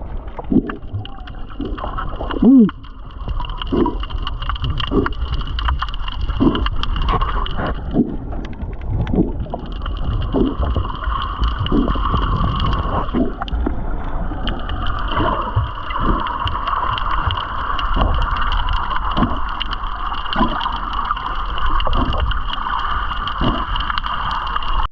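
Underwater ambience recorded by a GoPro while snorkeling: a muffled low rumble of water with a steady high-pitched whine that drops out twice, and soft knocks about once a second.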